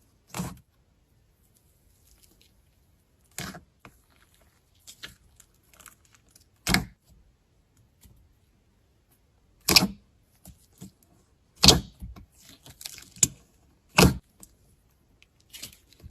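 Close-up crisp crackling and crunching: about six sharp crunches a few seconds apart, with small fainter crackles between them that come more often in the second half.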